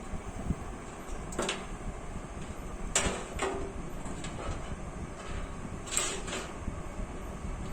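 A few sharp clicks and knocks from hands connecting cables inside a PC cabinet, the loudest about three and six seconds in, over a steady background hum.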